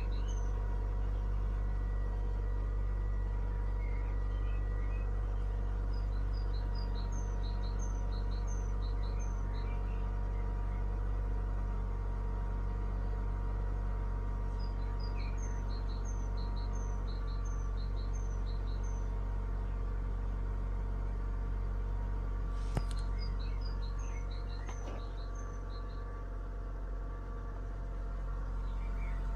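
Mazda Premacy 1.8 four-cylinder engine idling with a steady hum. The loudness sags for a few seconds near the end, then recovers. The engine's rough idle in drive was traced to a crack in the air intake. Birds chirp in short repeated series over it, and there is a single click partway through.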